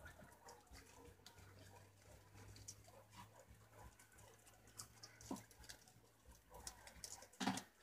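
Faint, scattered small clicks and rustles of preás (wild cavies) nibbling and shuffling among leaves, over a steady low hum. A louder knock comes about five seconds in and a sharper click just before the end.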